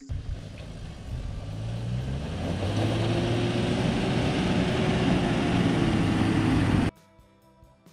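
Toyota Land Cruiser HZJ75 Troopy's six-cylinder diesel running and its tyres on gravel as it drives past. The sound grows louder as the vehicle approaches, then cuts off suddenly near the end into background music.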